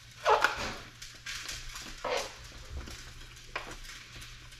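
A spoon scraping through a pot of thick cooked maja blanca and scooping it into a foil tray: three louder scrapes about a second and a half apart, with light clicks of the utensil in between.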